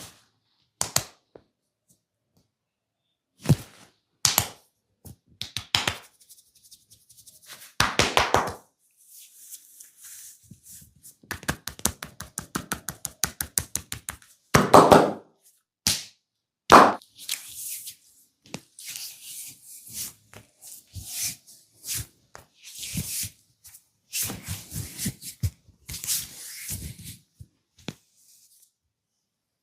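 Hand head massage: sharp slaps and taps of palms and fingers on the head, some single and some in quick rapid-fire runs, then fingernails scratching through the hair and scalp in short rasping bursts in the second half.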